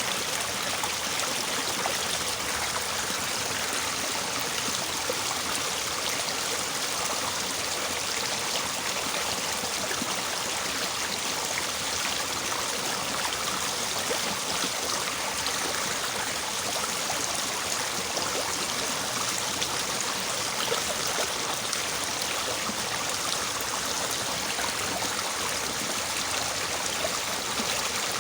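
A small, fairly swift river babbling steadily over its bed, a continuous splashy rush of water.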